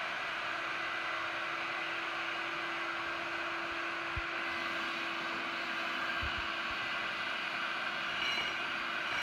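Husqvarna industrial dust extractor (vacuum) running steadily with an even whooshing noise and a steady hum, with a few dull knocks about four seconds and six seconds in.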